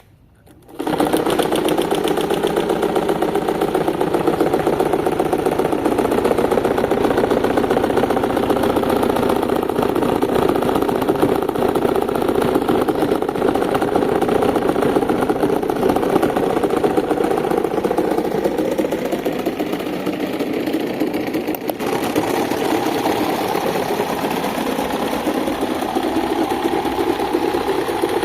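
Electric fan with a broken blade switched on, its motor running with a loud, steady buzz and a fast flutter. About 22 seconds in there is a click, and it carries on slightly quieter.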